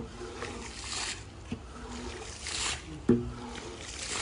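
A long-handled water scraper pushing soapy dirty water across a soaked rug: wet swishing strokes, with two sharp knocks, one right at the start and a louder one about three seconds in.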